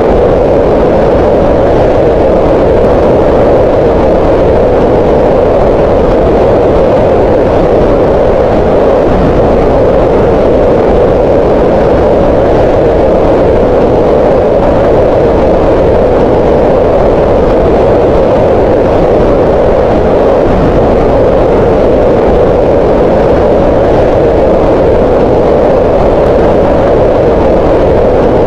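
Green noise: a loud, steady, unchanging hiss with its weight in the middle of the pitch range, centred around 500 Hz.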